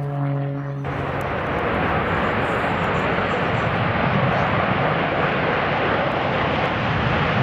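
Steady, loud roar of a jet aircraft's engines at an air show, starting abruptly about a second in after a steady droning hum with a clear pitch.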